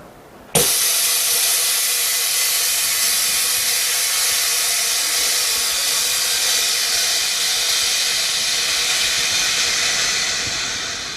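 Pressurised bubble removal machine (LCD autoclave) venting its compressed air at the end of a de-bubbling cycle. The loud steady hiss starts suddenly about half a second in and eases off slightly near the end.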